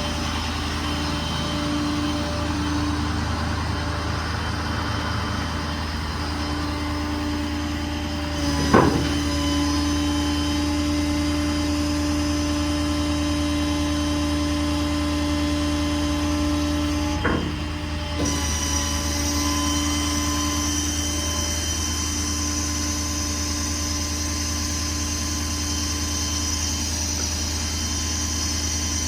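6.7 Powerstroke diesel engine of a Ford F550 running steadily to drive the crane hydraulics. About nine seconds in, a sharp clunk brings in a steady whine from the hydraulic system working the Stellar 7630 crane. The whine stops with another clunk around seventeen seconds.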